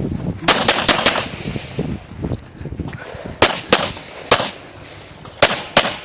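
Compensated Glock 35 pistol in .40 S&W firing fast strings of shots: four rapid shots about half a second in, three more in the middle, and a pair near the end.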